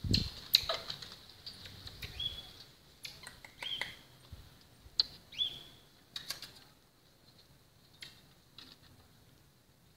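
Marmosets giving short, high chirping calls that slide down into a brief whistle, three or four times, among light clicks and taps. The sounds thin out after the middle.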